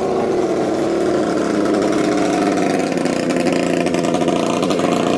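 Racing speedboat engine running steadily. Its pitch sags slightly in the first second, then holds.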